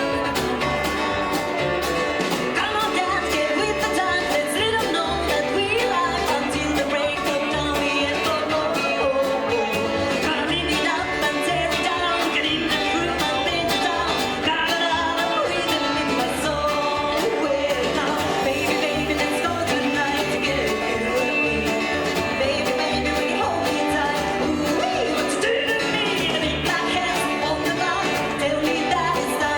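Live rockabilly band playing a fast stroll number, with a singing voice over guitar and a steady, pulsing bass beat.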